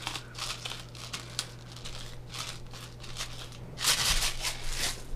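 Pepper mill grinding black peppercorns: a run of short gritty crackles, loudest in a burst near the end.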